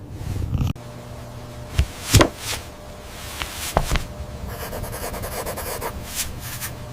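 A few knocks and thuds, the loudest about two seconds in, over a low steady hum and rubbing sounds.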